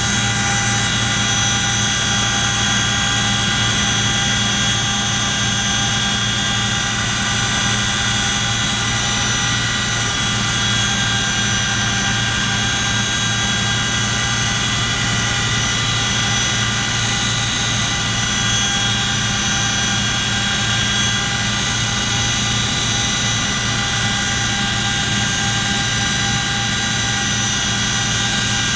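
Cabin noise inside a Boeing CH-47 Chinook tandem-rotor helicopter in flight: a loud, steady drone of engines and rotors with several high, steady whining tones over it.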